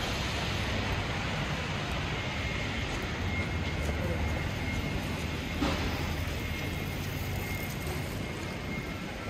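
City street traffic: a steady hiss with the low hum of a passing vehicle's engine, which swells in the middle and fades near the end.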